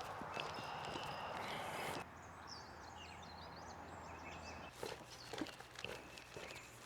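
A steady hiss that cuts off suddenly about two seconds in, followed by birds chirping, then footsteps on a trail starting near the five-second mark.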